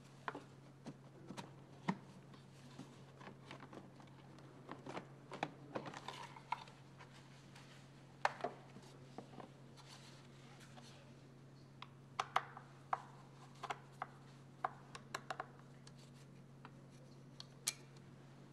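Scattered clicks, knocks and rubbing as gloved hands unclip and handle plastic air-intake parts (air filter housing, mass airflow sensor) in a VW TDI engine bay, with a quick run of clicks about two-thirds of the way through. A steady low hum runs underneath.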